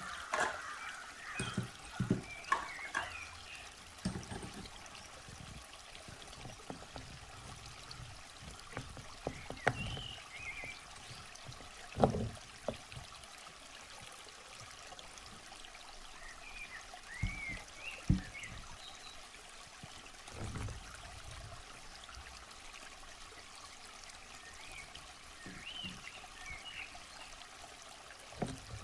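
Faint trickling water, with a few sharp knocks as rocks and toys are set down and short high chirps now and then.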